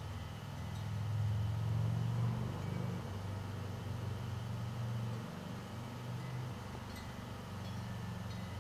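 A low, steady mechanical hum, somewhat louder for a few seconds about a second in.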